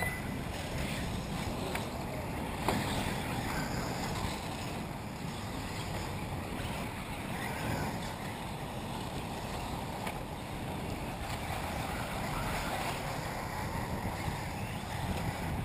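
Steady wind noise on the microphone, a low rumble over faint outdoor ambience, with one short knock about three seconds in.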